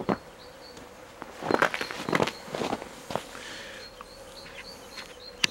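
Footsteps crunching in snow: one crunch at the start, then a run of four or five crunches between about one and a half and three seconds in. Faint high chirps repeat throughout.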